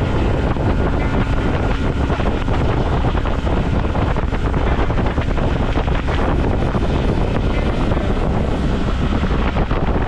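Small motorboat under way at speed: its engine running steadily, mixed with wind buffeting the microphone and water rushing past the hull.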